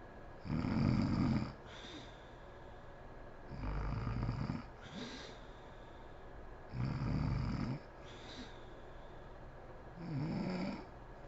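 A sleeping woman snoring: four loud snores about three seconds apart, each followed by a short, softer breath.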